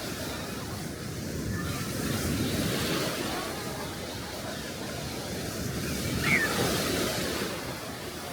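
Small sea waves washing onto the beach, swelling twice, with wind on the microphone. About six seconds in there is a brief high-pitched call.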